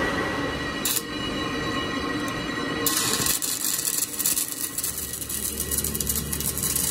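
Metalworking machinery running with a steady whine. About three seconds in, a harsh high hiss with fine crackle joins over a low hum.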